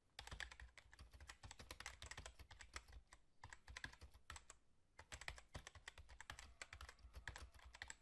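Quiet typing sound effect: rapid keyboard key clicks, with two short breaks midway, accompanying text being typed onto the screen letter by letter.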